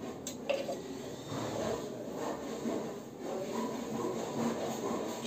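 Rubbing and scraping from work on a flanged PVC butterfly valve, with one sharp click just after the start.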